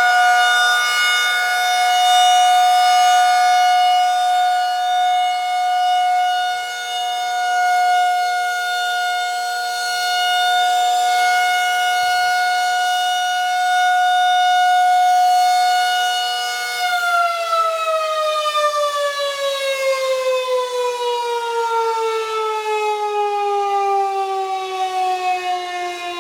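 Outdoor warning siren sounding a loud, steady two-note tone, then winding down about two-thirds of the way through, its pitch falling steadily.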